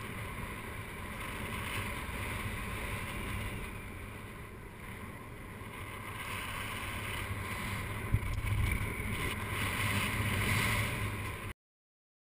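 Wind rushing over the microphone of a paraglider's harness-mounted camera in flight, rising and falling, with one sharp knock about eight seconds in. It cuts off suddenly near the end.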